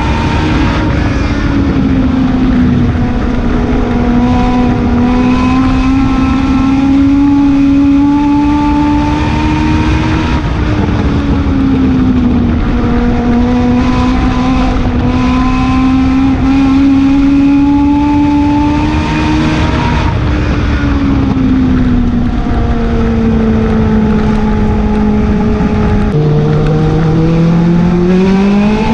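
A Legend race car's four-cylinder Yamaha motorcycle engine, heard from inside the cockpit at race pace on a dirt oval. Its pitch sags as the driver lifts for each turn, about every eight to ten seconds, then climbs again down the straights. Near the end it drops lower and then rises quickly.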